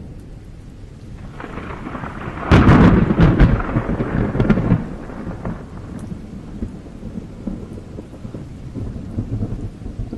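Thunder: a loud crack about two and a half seconds in that rolls on crackling for a couple of seconds, then dies back to a low rumble, with rain falling.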